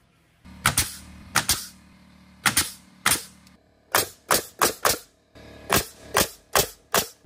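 Pneumatic nail gun driving nails into wooden floor framing: about a dozen sharp shots in quick runs, some close pairs, over a steady low hum.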